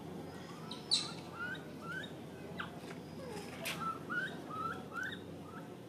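An animal calling: a run of short, rising, chirping calls, about two to three a second, over a low steady background. There is a sharp click about a second in.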